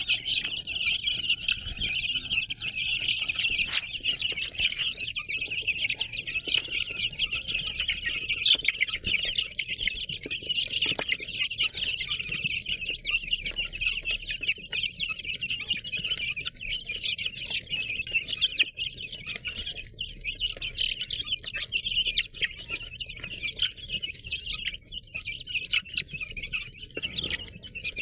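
A crowd of baby chicks peeping all at once: a dense, unbroken chorus of short high-pitched cheeps.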